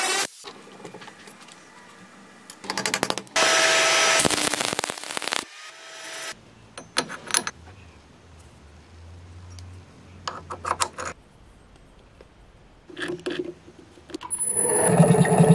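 Workshop sounds: metal tools being handled with sharp clicks, a power tool running for about two seconds, and near the end a machine motor starting up and running steadily.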